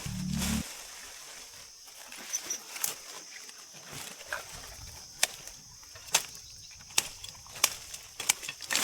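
Sharp knocks at irregular intervals, roughly one a second, over a steady high-pitched drone of background insects.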